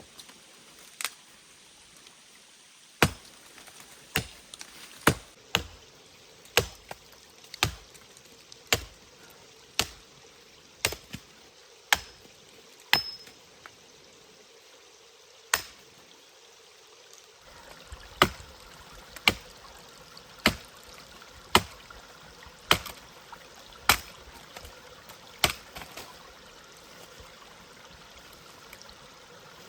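Axe chopping wood, sharp strokes at about one a second with a couple of short pauses, over a stream running steadily in the background.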